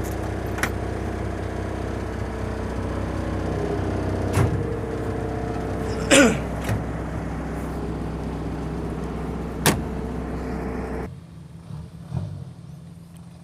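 Hino dump truck's diesel engine idling steadily, with a few sharp clicks and knocks and a short falling squeak about six seconds in. About eleven seconds in, the engine sound cuts off abruptly to a much quieter background.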